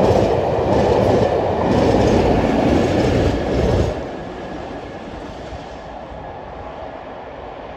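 Dragged South Western Railway electric units passing close by, their wheels clattering over rail joints about once a second. About four seconds in, the sound drops suddenly to a quieter rumble as the train, a Class 47 diesel locomotive at its rear, draws away.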